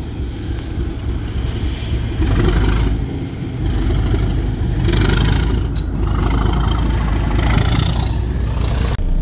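A heavy vehicle's engine running with a deep, steady rumble, with rushing noise swelling about every two to three seconds; no horn sounds.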